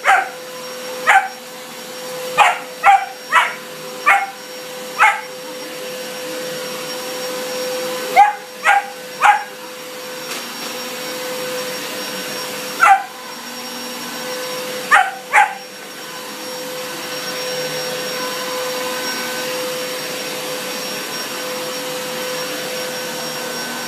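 Upright vacuum cleaner running with a steady motor whine while a German shepherd puppy barks at it, about a dozen short barks in bunches. The barking stops a little past halfway and the vacuum runs on alone.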